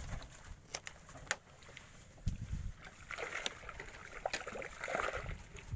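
Faint sloshing of water, with a few small sharp clicks and a low knock about two and a half seconds in.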